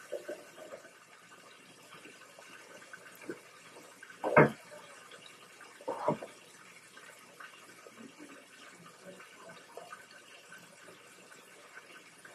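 Kitchen faucet running while hands are washed at the sink, a faint steady hiss of water, with two louder knocks about four and six seconds in.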